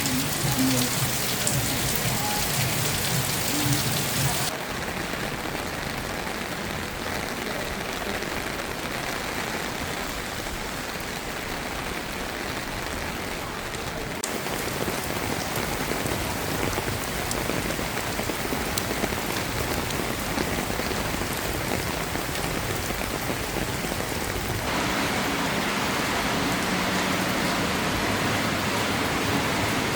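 Steady rain falling on hard surfaces, an even hiss of drops, in several stretches that change character abruptly about four, fourteen and twenty-five seconds in as the listening position changes.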